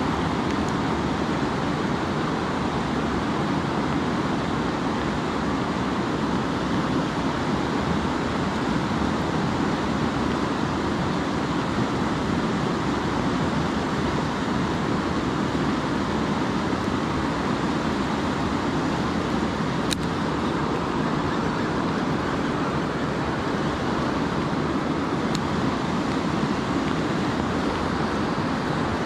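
Steady rushing of a river running fast over rocks and through riffles.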